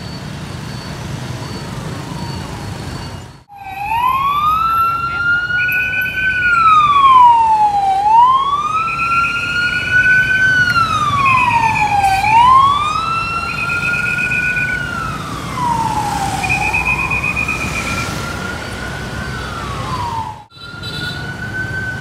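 Street traffic hum, then a few seconds in a police escort siren starts wailing, sliding up and down about every four seconds, with a shorter buzzing tone pulsing over it. It breaks off briefly near the end and resumes.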